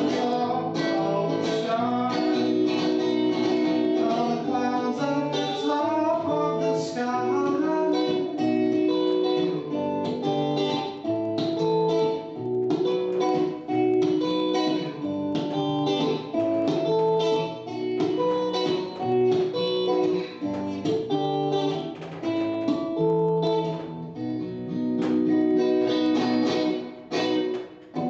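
Acoustic guitar playing an instrumental passage, a steady run of picked notes and chords, the close of a song, with the notes dying away near the end.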